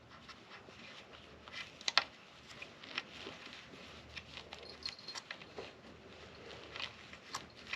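A cloth rag rubbing and scrubbing over an e-bike battery's terminals: irregular light scratching with small clicks, the sharpest click about two seconds in.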